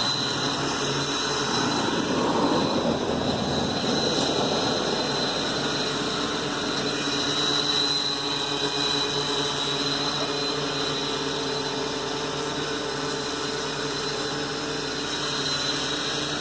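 Blade Chroma quadcopter's four electric motors and propellers hovering about a foot off the ground, a steady hum with several held tones. The battery is nearly drained, at about 10.6 volts.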